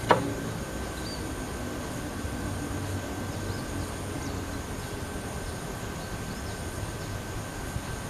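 Steady low outdoor background noise with a faint constant high tone, and a single short click right at the start.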